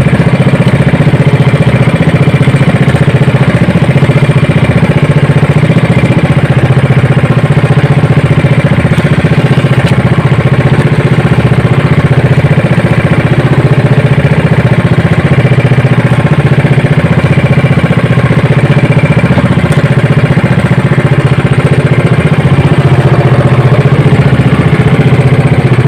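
Small inboard engine of a motorized outrigger boat (bangka) running steadily under way, loud and even with a fast, regular pulse.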